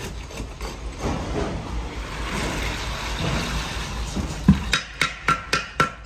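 Wet concrete being worked into a rebar-caged beam formwork with a steel tamping rod: a steady wet scraping, sloshing noise, then a heavy thud about four and a half seconds in and a quick run of sharp knocks as the rod strikes.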